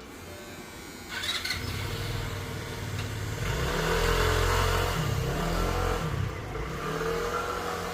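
Electric hair clippers switched on about a second in and running, their motor hum dipping and rising in pitch as they cut through hair.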